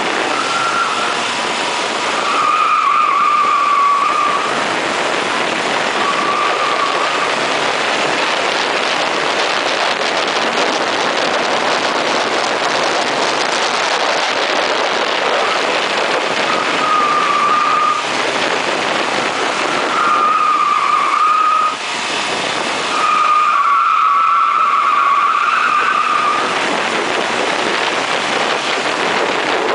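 A 1980 Ford Fiesta SuperSport driven fast on a race track: a loud, steady rush of engine, road and wind noise. Short, wavering squeals come and go several times as the tyres squeal through corners.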